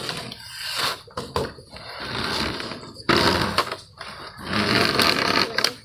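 Doll box packaging being opened by hand: cardboard and plastic scraping and tearing in several loud noisy strokes, with a few sharp clicks between them.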